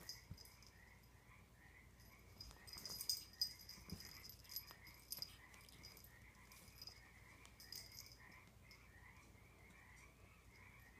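Near silence: faint rustling of cloth and a feather wand toy as a kitten pounces on them, loudest about three seconds in, over a faint steady chirping that repeats about three times a second.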